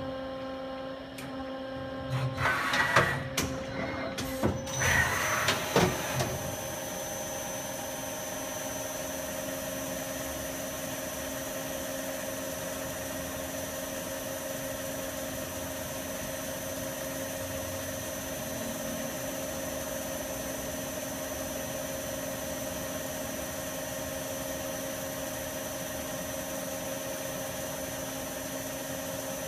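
Takisawa EX108 CNC turning center: a few clunks and short bursts of mechanical noise in the first few seconds as the turret moves, then about five seconds in the spindle comes up to speed and runs steadily with a high whine over a steady hum.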